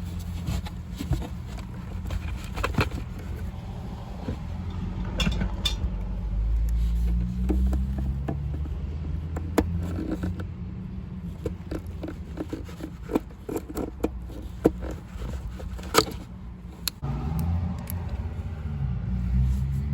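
Short clicks, knocks and scrapes of hands working a taillight assembly and its plastic locking wiring connector into place, over a steady low rumble.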